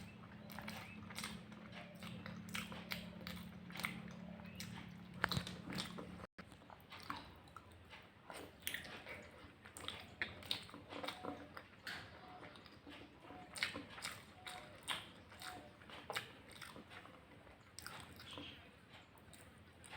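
Close-miked chewing and mouth sounds of someone eating egg curry with rice: a run of soft wet smacks and clicks. A low steady hum lies under the first six seconds and stops abruptly at a cut.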